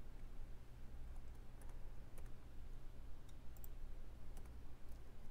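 A few faint, scattered clicks of a computer keyboard and mouse, over a steady low electrical hum.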